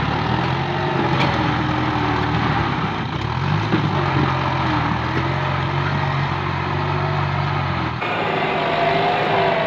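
Tractor diesel engine running steadily while its front blade pushes earth and brush, its pitch dipping and recovering briefly about three and a half seconds in. Near the end the sound changes abruptly to a higher, wavering engine note.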